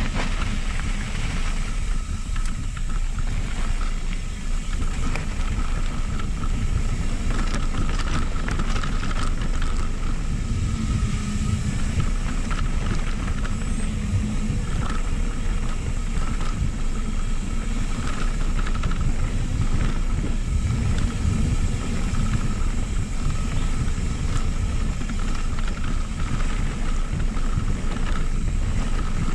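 Mountain bike rolling fast down a dirt trail: steady wind rush on the microphone with tyre noise, and scattered knocks and rattles as the bike goes over bumps.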